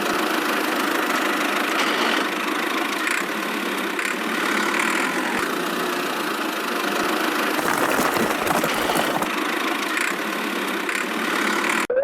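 Small engine of a miniature DIY tractor running steadily, a continuous mechanical noise with no change in speed.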